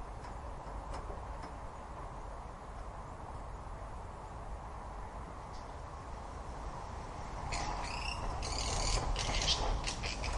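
A steady low ambient rumble, then about three quarters of the way through a short flurry of high-pitched animal squeaks and chirps with quick rising and falling glides, lasting a couple of seconds.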